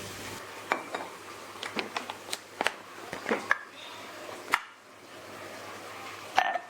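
Irregular light clicks, clinks and knocks of small hard objects being handled and set down, with two sharper knocks near the end.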